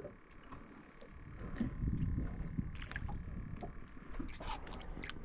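Water lapping and sloshing against a fishing boat's hull at sea, with a low rumble and a few sharp clicks.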